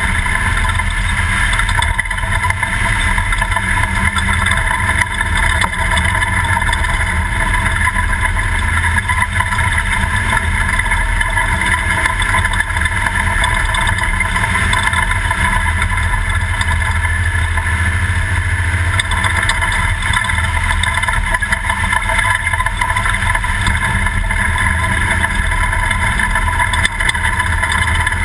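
Toyota prerunner desert race truck running at a steady pace, its engine and drivetrain droning loud and even throughout.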